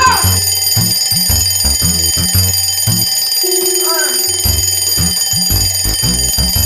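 Many alarm clocks going off at once, a stack of steady high ringing and beeping tones held together. A heavy-beat background music track plays underneath.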